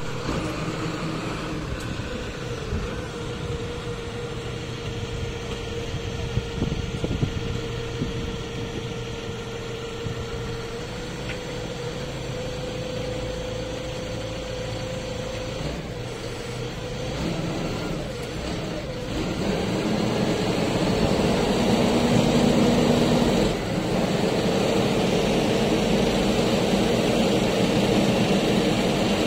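Marina boat-lifting forklift's engine running steadily, then working harder and growing louder about two-thirds of the way through as the motorboat is lifted on its forks.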